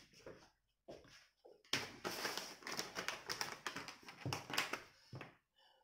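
Uneven tapping and rustling as a paintbrush dabs and scrubs paint onto a fabric tote bag while hands shift the bag on the table.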